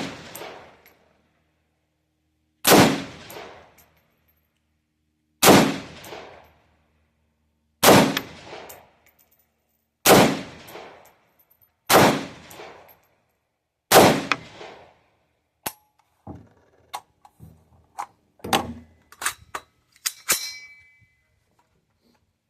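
Seven single rifle shots from a 3D-printed AR-15 fired semi-automatically, one every two to three seconds, each with a ringing echo; the rifle cycles round after round. Then a run of lighter metallic clicks and clanks, one with a short ring, from handling the rifle.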